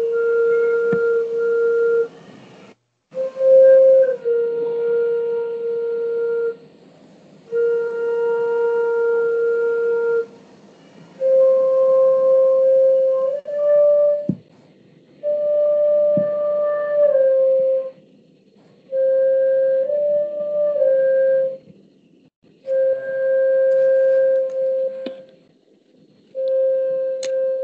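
Slow, meditative flute music: one melodic line of long held notes, in about eight phrases of two to three seconds with short pauses between, the pitch stepping up or down a little within each phrase.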